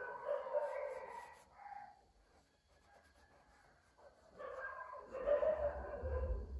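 A dog barking in two spells, one at the start and one from about four and a half seconds in, with a short call between them and a low rumble under the second spell.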